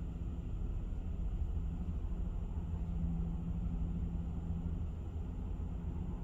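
A steady low rumble with a constant hum, unchanging throughout and with no distinct events.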